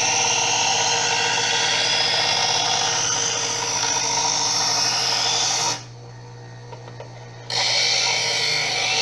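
Secura two-stage electric knife sharpener running, with a steel kitchen knife blade drawn through its grinding slot: a loud, steady grinding rasp over the motor's steady hum as the edge is ground. About six seconds in the blade comes out of the slot for a second and a half, leaving only the motor hum, then the grinding starts again.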